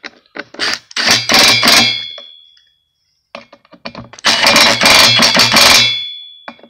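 Cordless impact driver hammering in two bursts, about a second in and again about four seconds in, as it runs down the cylinder (jug) bolts on a Husqvarna 150BT's 50cc two-stroke engine. Each burst leaves a metallic ring that fades away, and a few light clicks come before each one.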